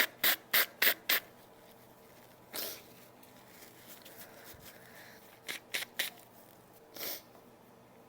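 A woman pushing short, sharp puffs of air through her nose: a quick run of about five puffs in the first second, a longer single puff about two and a half seconds in, three quick puffs around five and a half seconds, and another longer one near seven seconds.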